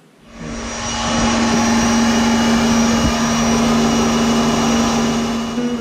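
Kärcher electric pressure washer working as the high-pressure pump of a home-built reverse-osmosis water maker, running and pushing seawater through the membrane to make fresh water. It comes in right at the start and builds to a steady run within about a second, with a steady hum under a loud motor noise.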